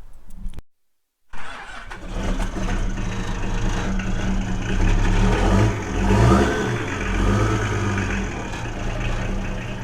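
Old diesel tow truck engine cranking and catching straight away, then running steadily with a brief rise in revs about six seconds in.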